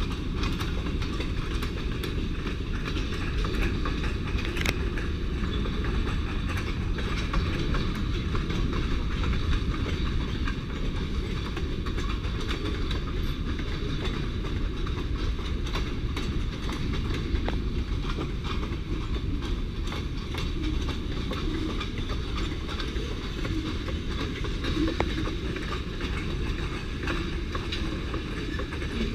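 Freight cars (covered hoppers, a gondola and tank cars) rolling past: a steady rumble of steel wheels on the rails with many sharp clicks.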